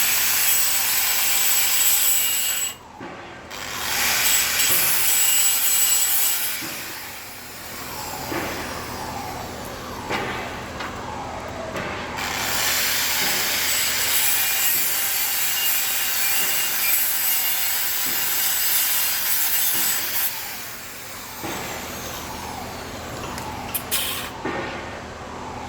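A pipe being cut: a loud, continuous rasping cut that drops off briefly about 3 seconds in and again near the end.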